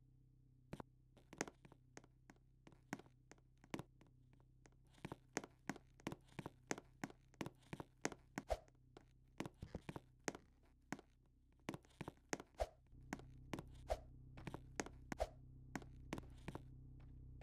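A quick, irregular series of sharp clicks and knocks, a few each second, over a low steady hum that gets louder about three-quarters of the way through.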